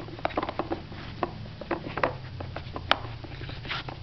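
A dog nosing and pawing at a plastic Nina Ottosson Dog Casino puzzle toy, its drawers knocking and rattling in quick, irregular clicks, with the sharpest click about three seconds in.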